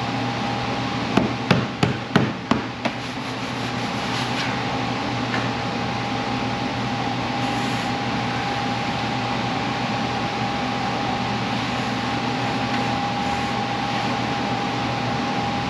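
A quick run of about six sharp wooden knocks as a large wooden sheet is knocked loose and tipped up off a CNC router bed, over a steady machine hum with a constant whine.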